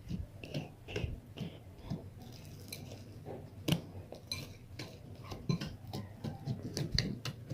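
Homemade glue-and-soap slime being handled in its bowl: irregular small clicks, taps and clinks.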